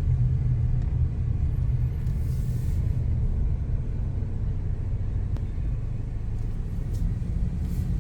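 Steady low rumble of a car driving, engine and road noise without a break.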